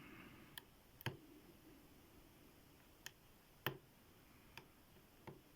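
Faint, sparse clicks of a lock pick working the pins inside a cast iron Tri-Circle padlock during single pin picking: about six small ticks at uneven intervals.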